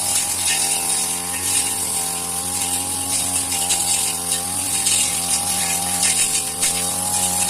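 Grass-cutting machine's small petrol engine running steadily at working speed while cutting grass, its pitch wavering slightly, with a high hiss over the top.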